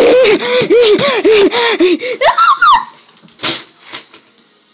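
A girl laughing wildly in quick, repeated whoops that climb into a high squeal a little over two seconds in, then break off. A single knock follows about a second later.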